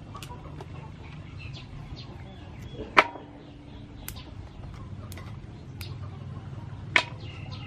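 Long beans (yardlong beans) being snapped into pieces by hand, with two sharp snaps about three and seven seconds in and lighter ticks between, over a steady low hum.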